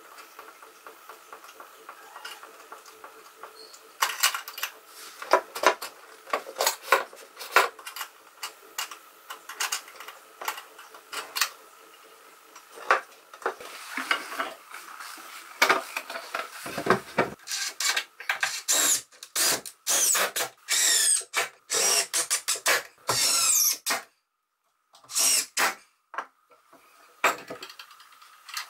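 Wooden folding-table parts and metal hinge hardware being handled and fitted, with many sharp knocks and clicks. Later comes a quick run of short whirring bursts from a cordless drill driving screws. A faint steady hum is heard at first.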